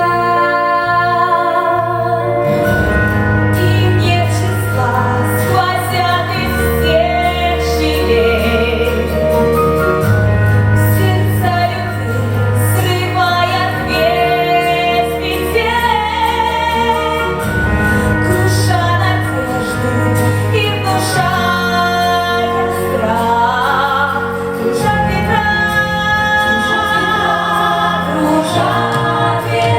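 A vocal ensemble sings a song with instrumental accompaniment, the lead voices female. A deep bass line comes in about two and a half seconds in.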